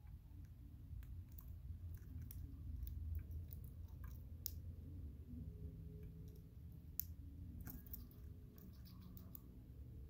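Budgerigar nibbling at a wooden chew toy: irregular small clicks and cracks of beak on wood, over a low steady hum.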